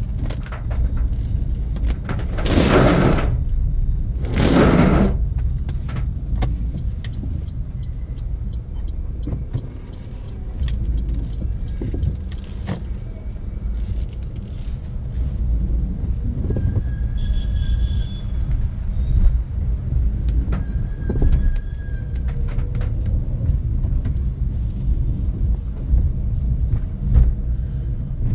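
A car's steady low rumble of engine and tyres on a wet road, heard from inside the cabin. Two short loud swishes come a few seconds in.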